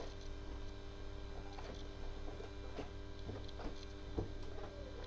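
Printed paper cube poster being handled and folded close to a laptop's built-in microphone: scattered faint rustles and small taps over a steady electrical hum.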